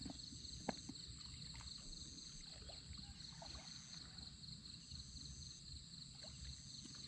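Insects chirring steadily in a high, even drone, with a second insect call switching on and off about every second and a half, over a faint low rumble.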